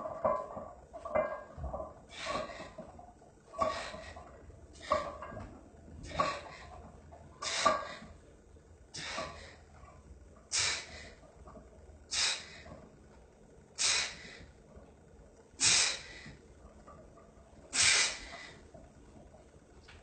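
A man's sharp, forceful breaths blown out in time with the reps of a 225 lb bench press, about one every one to two seconds, spacing further apart toward the end of the set. The first few carry a bit of voice.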